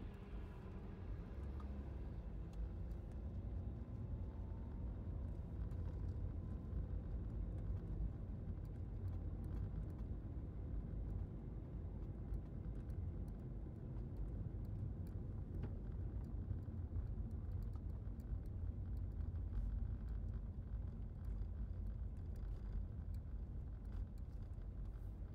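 Vehicle engine running steadily with a low rumble, with a faint slowly rising whine a few seconds in.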